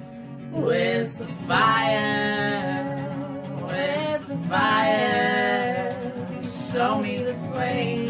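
A woman singing long held notes, each sliding up into the note, over a strummed acoustic guitar.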